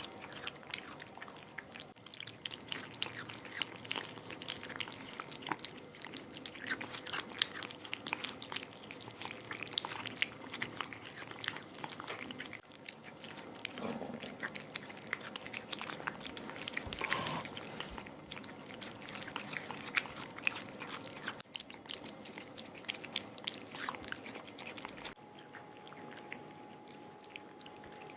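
A cat eating wet canned cat food, with rapid wet smacking and chewing clicks. The sound goes softer in the last few seconds.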